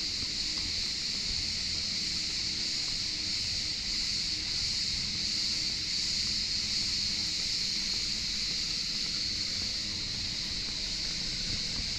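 Steady, high-pitched buzzing chorus of insects, unbroken and even in level.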